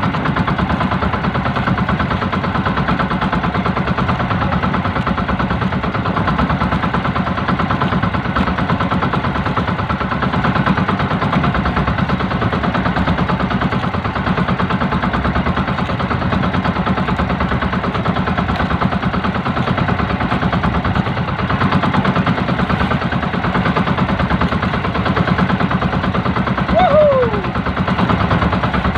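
Outrigger fishing boat's engine running steadily with a fast, even pulse. Near the end, a short high sound falls in pitch.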